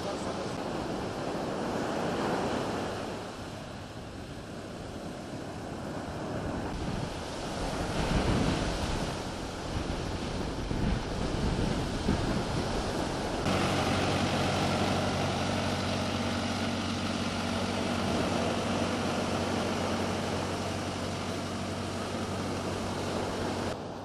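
Surf breaking on a sandy shore, with wind buffeting the microphone in heavy gusts. About halfway through, a steady engine hum sets in and continues under the waves.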